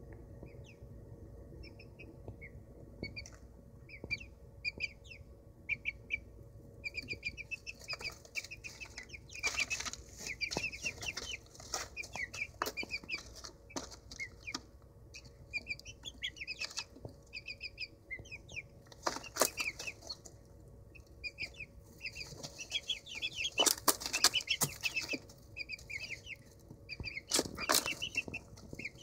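Young Old English Game bantam chicks peeping in many short high notes, with bursts of scuffling and wing flapping in the wood-shavings bedding about ten seconds in and again in the last third.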